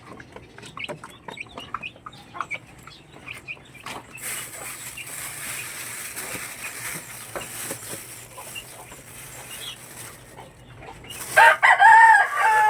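Backyard chickens clucking softly, with a steady hiss through the middle, then a rooster crowing loudly near the end.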